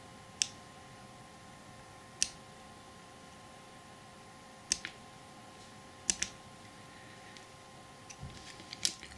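Sharp, light clicks of a craft-knife blade nicking small shavings off the edges of a tiny plastic model part, single or in quick pairs a second or two apart, over a faint steady hum.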